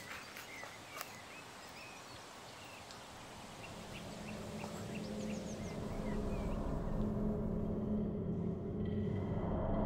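Footsteps crunching in dry leaf litter fade away while small birds chirp. From about four seconds in, a low steady drone swells up and grows louder as the birds drop out.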